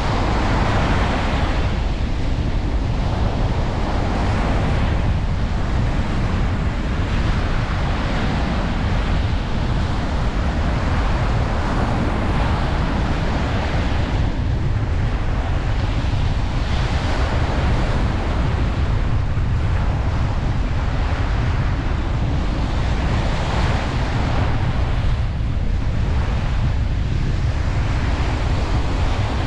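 Ocean surf washing onto a beach, a continuous rush of waves that swells and eases every couple of seconds, over a low rumble of wind on the microphone.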